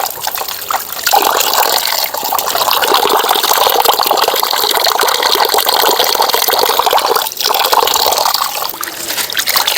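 Water running in a strong, steady flow, pouring and splashing, with a couple of brief dips in the flow.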